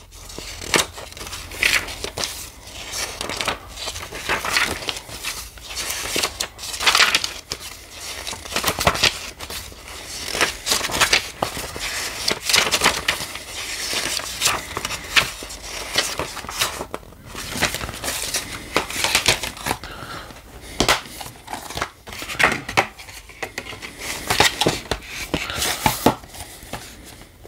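Pages of a glossy paper booklet being flipped and bent by hand: an irregular run of rustling and crinkling. Near the end, a plastic Blu-ray case is handled.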